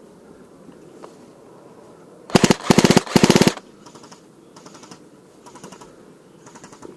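Airsoft rifle firing full-auto: two loud rapid bursts of shots back to back a little over two seconds in, followed by several fainter short bursts of other airsoft fire farther off.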